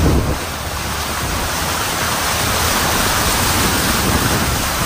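Floodwater churned up by a car driving through it: a steady rush of splashing water.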